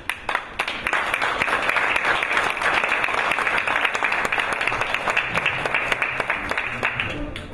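Audience applauding: a dense crackle of many hands clapping that starts all at once and fades out near the end.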